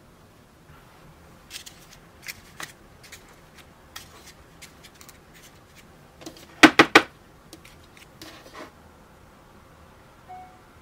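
Light clicks and taps of paper baking cups filled with financier batter being handled and set down on a metal baking tray, with three sharp knocks in quick succession about two-thirds of the way through.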